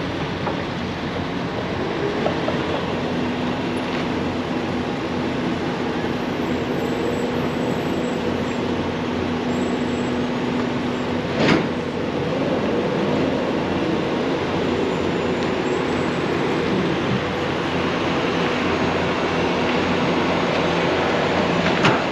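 Heavy diesel demolition machinery running steadily, a tracked excavator working a rubble pile, with one sharp bang about halfway through and another near the end.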